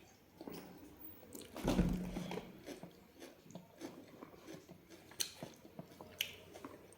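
Close-up eating sounds of cooked chicken: bites and chewing, with irregular wet mouth clicks and crackles and a louder bite about two seconds in.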